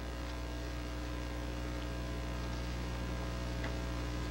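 Steady electrical mains hum with a stack of higher buzzing overtones, holding unchanged throughout.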